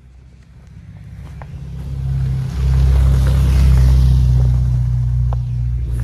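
Subaru car engine approaching, a low engine note that grows louder over about the first two and a half seconds and then stays loud as it goes by.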